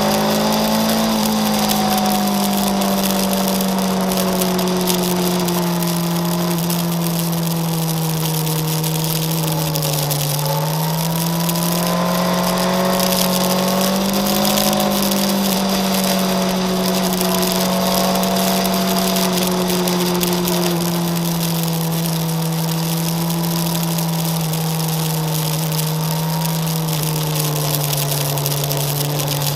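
Motorcycle engine running steadily while riding, its note easing slowly down, rising again about ten seconds in, then settling lower, over a steady hiss of wind and road noise.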